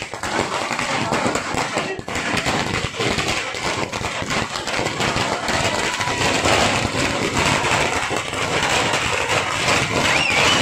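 A long string of firecrackers going off in a rapid, continuous crackle of bangs, with crowd noise underneath.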